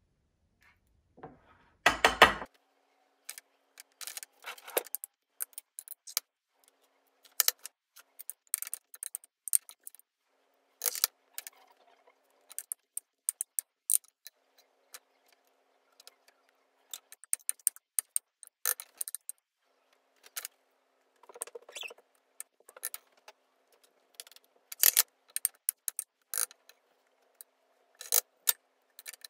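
Metal kitchen tongs clicking and clinking against bowls and a wire rack while chicken breasts are dredged in flour and wet batter. Irregular sharp clicks and taps, with a louder clatter about two seconds in.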